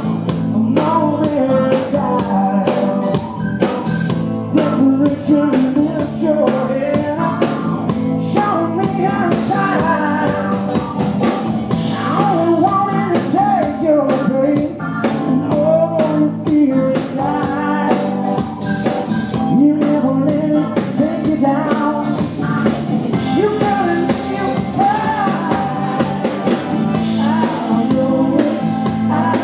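Blues-rock band playing live, with singing over electric guitar and a drum kit.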